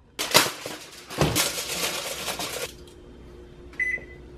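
Rustling and light clattering as kitchen items are handled for about two and a half seconds, then a low steady hum. Near the end, a single short electronic beep from an electric oven's touch control panel as a button is pressed.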